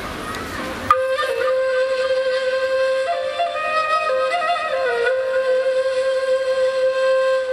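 Recorded dance music opening with a slow solo woodwind melody of long, held notes, which starts about a second in over the outdoor background noise.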